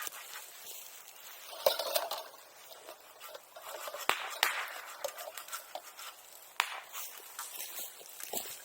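Bonfire crackling with a steady hiss, broken by several sharp pops and cracks spread through.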